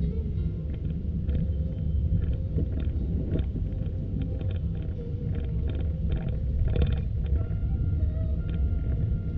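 Steady low rumble of street traffic, with faint level tones and short ticks coming and going over it.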